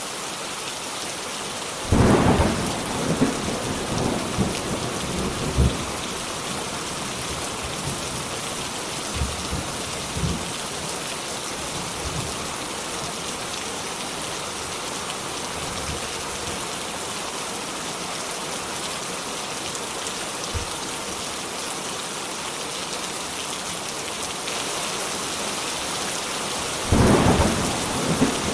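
Steady heavy rain hissing, with a loud thunderclap about two seconds in that rumbles off over several seconds, a few fainter rumbles, and another loud thunderclap near the end.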